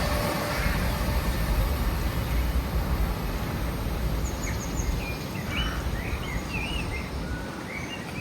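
Low rumble of a train that has just passed, fading slowly into the distance, with wind noise on the microphone. Small birds chirp and tweet from about halfway through.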